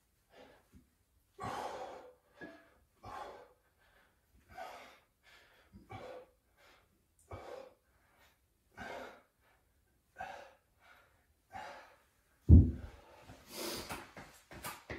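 A person breathing hard from exertion through a set of bent-over dumbbell rows: short, forceful breaths about once a second. A single loud, low thump comes near the end.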